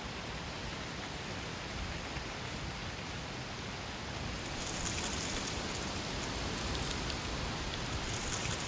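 Strong wind blowing through trees, with a low wind rumble and dry autumn leaves rustling and skittering; the crackly leaf rustle grows louder about halfway through as a gust picks up.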